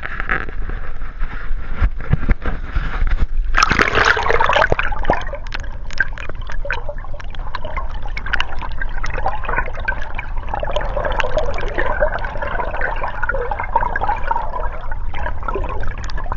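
River water sloshing and gurgling, heard with the microphone going under the surface. There is a loud splash about four seconds in, then muffled underwater swishing and bubbling with many small clicks.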